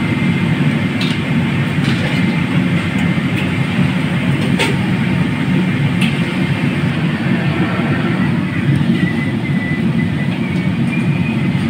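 Steady low rumble of a moving vehicle, with a few faint clicks.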